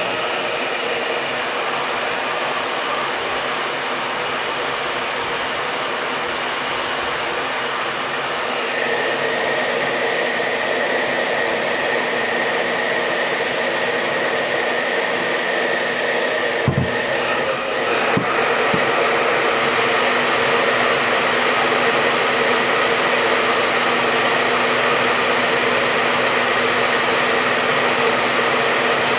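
Hand-held hot-air blower running steadily, stepping louder about nine seconds in and again about eighteen seconds in, with one sharp click near seventeen seconds.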